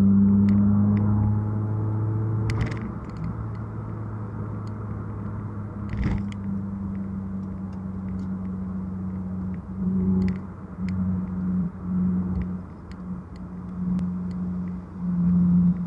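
Car interior noise at highway speed: a steady low engine drone over road rumble, with a few faint knocks. In the second half the drone swells and fades repeatedly.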